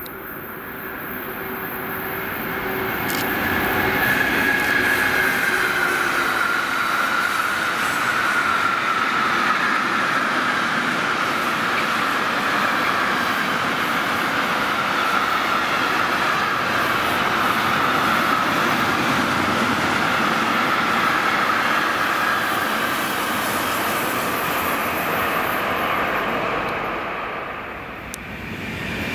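Freight train of container wagons passing close by on electrified main line track: steady rolling rumble of the wagons with a high wheel whine that slowly drops in pitch. It builds over the first few seconds, holds, and fades briefly near the end.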